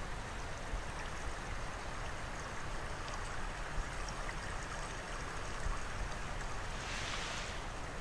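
Steady rushing of a shallow mountain stream flowing over rocks, with a brighter hiss swelling briefly about seven seconds in.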